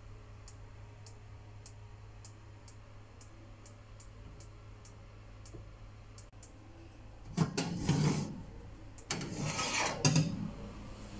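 Oven hums with a faint mechanical timer ticking about twice a second. From about seven seconds in, a metal baking tray scrapes twice as it is slid out over the oven rack, with a sharp clack near the end.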